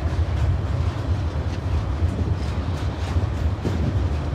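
Freight train's log-laden wagons rolling across a bridge: a steady low rumble with a few faint clicks from the wheels.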